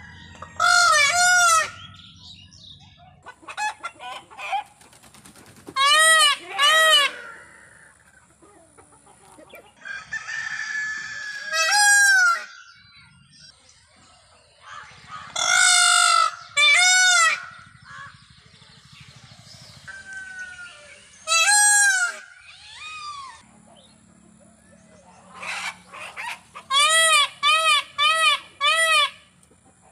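Indian peafowl (peacock) calling: loud, high, wailing calls that rise and fall in pitch, in groups of two or three with pauses between, then a quick run of about five calls, roughly two a second, near the end.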